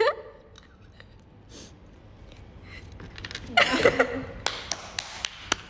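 Faint room tone, then about three and a half seconds in a short burst of a young woman's voice, followed by several sharp, separate taps or clicks.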